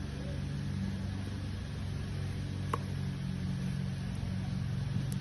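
Engine idling steadily with a low, even hum, and a single sharp pop about three seconds in.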